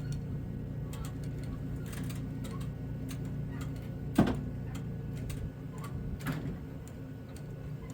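Steady low running hum, likely the John Deere combine's engine, under scattered light metallic clicks, with one sharp clank about four seconds in as the header is being hooked on.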